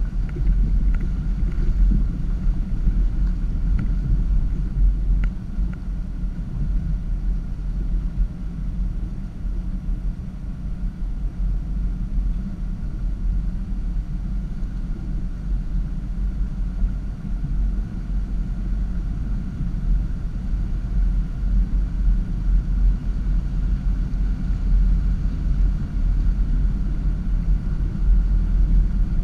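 Land Rover Discovery driving slowly through a shallow creek bed: a steady low rumble of engine and vehicle vibration, picked up by a GoPro mounted on the bonnet. A few faint ticks come in the first six seconds.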